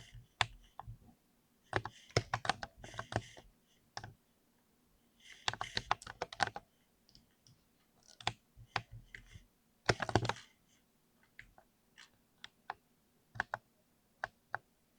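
Typing on a Ducky mechanical keyboard with Cherry MX Speed linear switches: flurries of quick key clacks broken by pauses and single keystrokes, with a louder cluster about ten seconds in.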